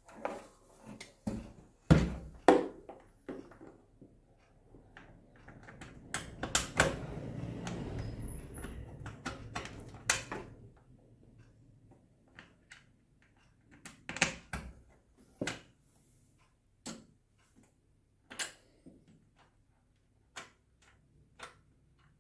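Plastic casing of a quartz room heater handled and screwed back together: scattered knocks and clicks of plastic and a screwdriver. A few seconds in there is a stretch of scraping and rubbing lasting about four seconds, followed by more separate clicks.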